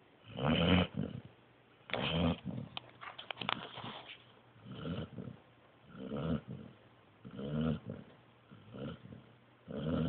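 Sleeping pointer puppy snoring, a rattly snore with each breath about every second and a half, with a few short clicks about three seconds in.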